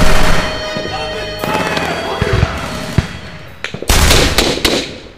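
Music with held tones fading away, then a short burst of several gunshots about four seconds in.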